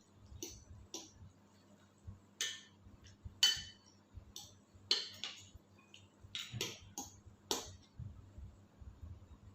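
Cutlery clinking against a bowl or plate while eating: about a dozen light, irregular clinks, a few of them ringing briefly.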